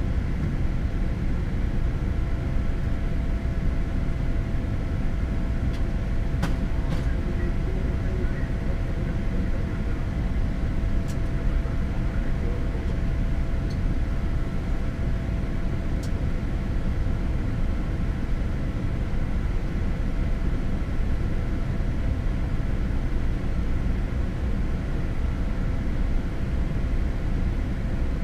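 Steady flight-deck noise of a Boeing 787 climbing out: a constant low rumble of airflow and engines, with a faint steady hum above it. A few light clicks come through, around six, eleven and sixteen seconds in.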